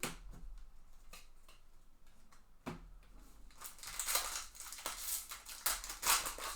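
Trading cards being handled with a few light clicks, then, about halfway through, a loud run of crinkling and crackling from a foil card-pack wrapper being opened.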